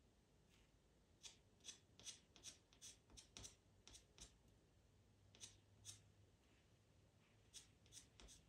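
Faint scratching of a pastel pencil on Pastelmat paper: a run of short, quick flicking strokes, several a second, with a pause about two-thirds through and a few more strokes near the end.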